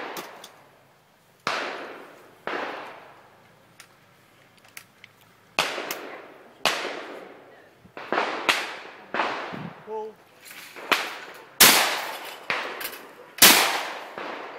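Shotguns firing at clays: about a dozen shots at irregular intervals, some loud and close and others fainter, each followed by a fading echo, with the two loudest shots near the end.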